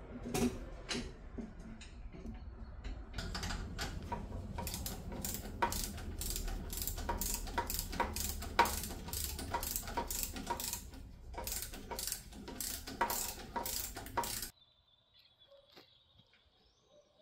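Metal hand tool clicking over and over, about three clicks a second, while working on a car's rear suspension; the clicking stops abruptly near the end.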